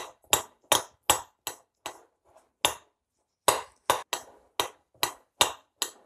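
Metal spoon knocking against the side of a ceramic bowl in a steady rhythm, about three knocks a second, with a short pause about three seconds in, while curd cheese and egg are beaten together.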